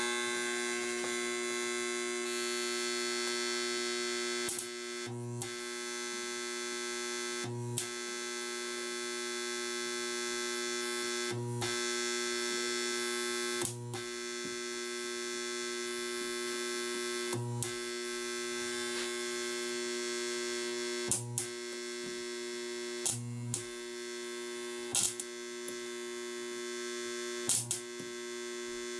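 Homemade transformer spot welder humming steadily while its copper electrodes weld nickel strip onto 18650 lithium cells. About ten weld pulses come every two to four seconds, each a short click with a brief low thump.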